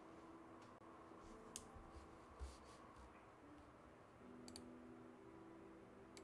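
Near silence: faint room tone with a few short, sharp clicks.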